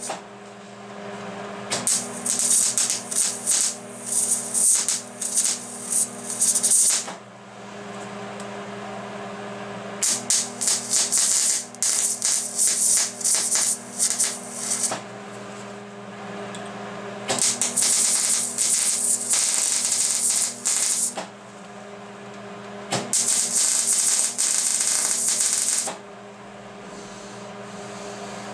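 Millermatic 185 MIG welder's arc crackling and sizzling as a weld is laid on steel tubing, in four runs of a few seconds each with short pauses between. A steady low hum continues under the runs and through the pauses.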